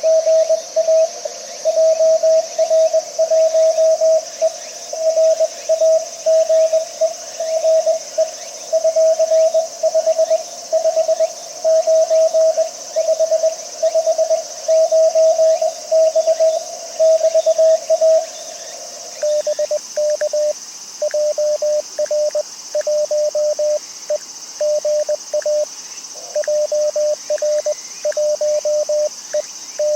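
Morse code (CW) from an amateur radio transceiver: a single-pitch beep keyed on and off in dots and dashes. About two-thirds through, it gives way to a slightly lower, quieter keyed tone, a second signal. A steady hiss runs underneath.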